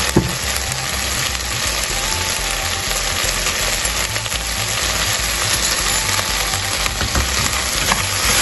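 Diced potatoes, carrots and onion frying in coconut oil in a pressure cooker pot, a steady sizzle, with a single knock just after the start.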